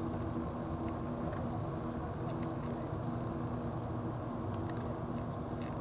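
A steady low engine rumble with a droning hum, and over it faint, irregular small clicks of a cat chewing wet food.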